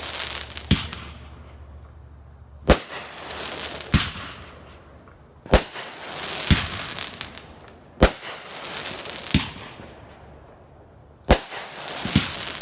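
Fireworks going off in quick succession: about eight sharp bangs one to two and a half seconds apart, each followed by a fading crackle and hiss.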